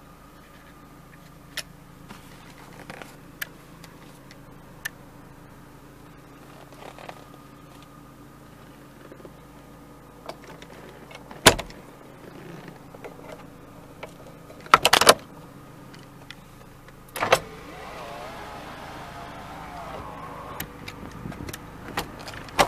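Miata interior controls being handled: light clicks from the power mirror switch, then sharp knocks and snaps as the sun visor is swung and flipped back, over a faint steady hum.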